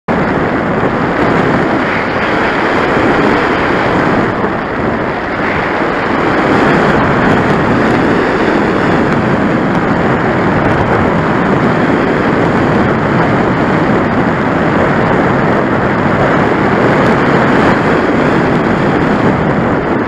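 Loud, steady rush of very heavy wind buffeting the microphone of a camera riding on an RC glider in flight.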